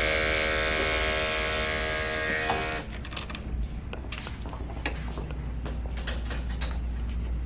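Andis electric dog-grooming clipper running with a steady buzz as it trims hair off a dog's foot, then switching off about three seconds in. Light clicks and handling knocks follow.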